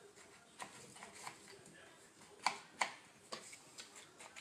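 Light handling clicks and taps, irregular, with two sharper clicks about two and a half seconds in.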